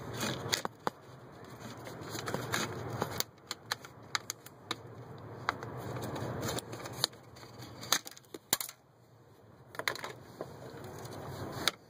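Scattered sharp clicks and light rattles of a plastic wiring sleeve and wiring connectors being handled and worked free under a 1970s GM steering column. There is faint rustling in between.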